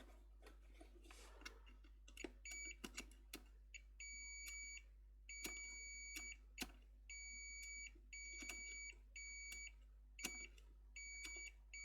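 Multimeter continuity beeper sounding in a series of high, steady beeps of uneven length, about ten of them starting a couple of seconds in, with faint clicks of the probes touching the power jack pins. The beeps confirm continuity from the re-soldered centre pin of the keyboard's power jack.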